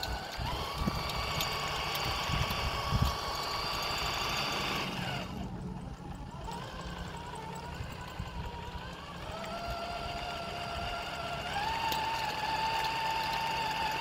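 Small 1/24-scale RC crawler's electric motor and gear train whining as it drives, the pitch dropping and fading about five seconds in, then rising again in steps. A few low knocks come in the first three seconds.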